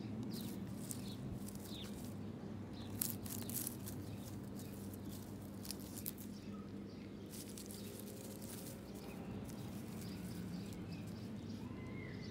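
Scattered rustles and light taps of a horse figurine being moved by hand through grass and over ground, over a steady low outdoor hum.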